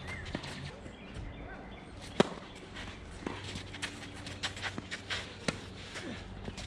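Tennis rally: sharp pops of the ball on racket strings and court. The loudest is a close racket hit about two seconds in, with several fainter hits and bounces after it.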